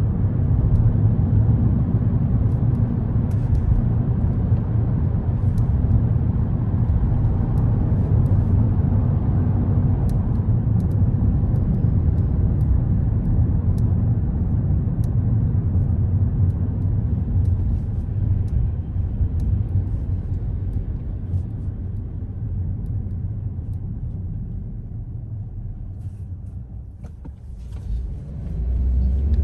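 Car driving through city streets: steady low road and engine rumble with faint scattered clicks, dipping quieter for a few seconds near the end and then rising again.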